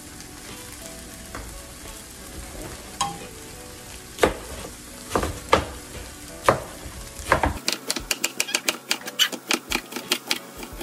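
Kitchen knife chopping a head of cabbage on a plastic cutting board: a few separate chops, then near the end a quick run of about six chops a second. A steady sizzle from the frying pan of cabbage runs underneath.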